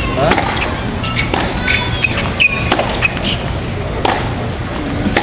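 Tennis balls struck by rackets in a practice rally: several sharp pops spaced about a second apart. Voices of spectators chatter underneath.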